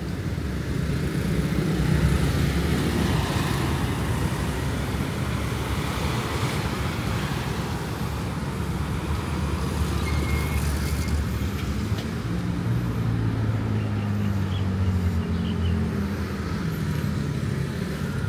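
Street traffic: motor vehicles running past, a steady noise with engine hums that swell and fade, one engine hum stronger in the second half.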